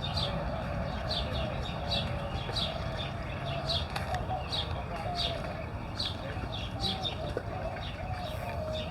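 Birds calling at a feeding area: a steady series of short, high, falling chirps, about two a second, over a lower warbling chatter, with a low rumble of wind or handling noise underneath.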